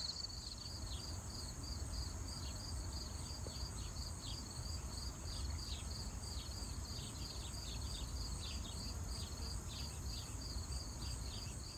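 Crickets chirping steadily in a chorus, about three chirps a second, over a continuous higher insect trill. A low rumble runs underneath.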